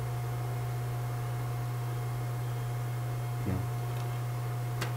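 Steady low electrical hum, with a faint short knock about three and a half seconds in and a sharp click near the end.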